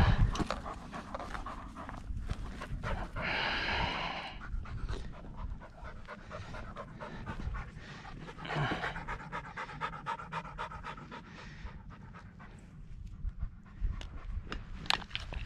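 Pointing dog panting hard, with scattered short clicks and rustles.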